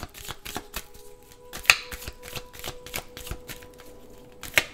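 A deck of tarot cards being shuffled by hand: a quick, uneven run of soft card snaps and flicks, with a sharper snap a little under two seconds in and another near the end. A faint steady hum lies underneath.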